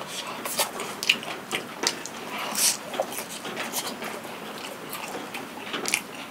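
Close-up chewing of a potato and mung bean pancake: irregular wet mouth clicks and smacks, over a steady soft hiss of rain.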